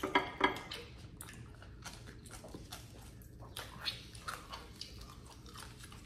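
Close-miked chewing and biting of goat meat: a run of wet mouth clicks and smacks at irregular intervals.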